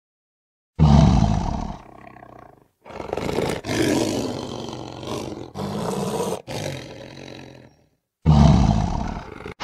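Lion roars used as an intro sound effect: a loud roar about a second in, more roaring in several abruptly cut segments through the middle, and another loud roar near the end.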